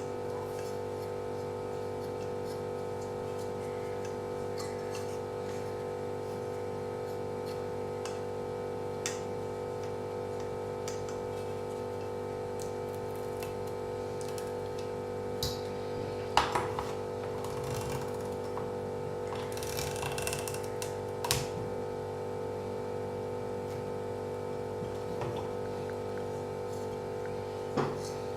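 Scattered clicks and light knocks from handling laptop parts and tools during disassembly, a few sharp ones about a third, half and nearly all the way through, over a steady electrical hum.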